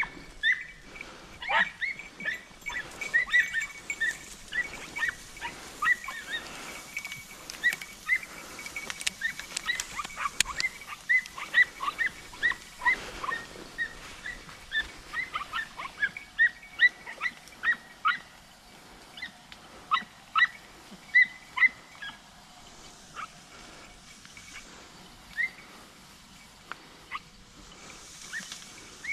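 Podenco hounds yelping in short, irregular cries, coming thick and fast for about twenty seconds and then thinning out.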